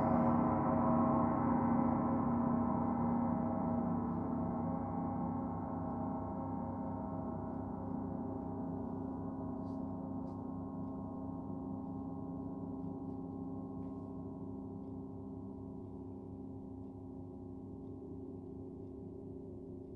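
Several gongs ringing on after being struck, a dense wash of steady, many-layered tones slowly fading, with no new strikes.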